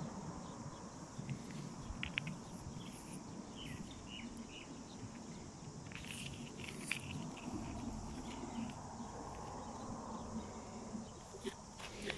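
Steady high-pitched insect chorus over a low rumble, with a few faint chirps and some small clicks and rustles of rocks being handled in the hand.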